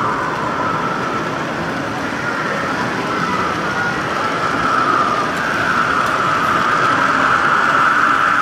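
Model trains running on the layout's track: a steady rushing rumble with a wavering whine on top, which swells about five seconds in.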